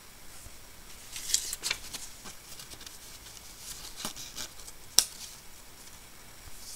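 Handling noise from a Samsung flip wallet phone case and its paper insert card: a few quick rustles and scrapes, then light clicks, the sharpest about five seconds in.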